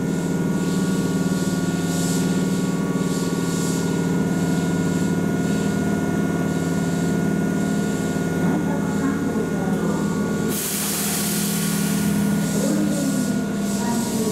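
Keihan electric train standing at a station, its electrical equipment giving a steady hum made of several level tones. A sudden steady hiss, like released air, joins it about ten seconds in.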